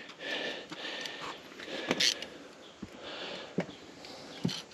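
Work noise from handling tools and parts: rustling with a few sharp clicks and knocks, one about two seconds in and two more near the end.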